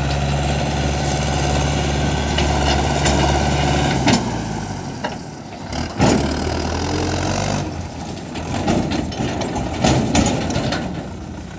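Diesel engine of a Rusi (Belarus) 510 tractor running steadily with its tipping trailer raised, dumping a load of sugarcane bagasse. The engine note dips briefly about five seconds in, then comes back, and grows rougher and more uneven in the last few seconds as the tractor pulls forward.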